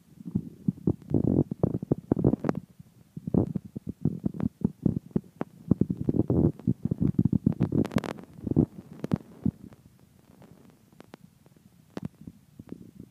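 Handling noise on a handheld phone's microphone: irregular low rumbling with scattered clicks and knocks, one sharper click about eight seconds in, then a quieter stretch near the end.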